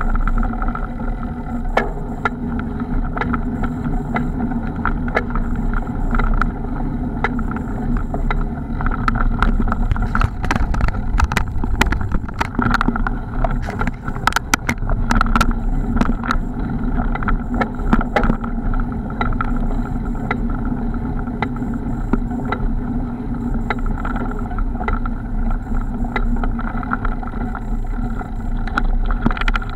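Steady wind and riding noise picked up by a camera on a mountain bike rolling along a dirt track, with sharp knocks and rattles from bumps, thickest through the middle.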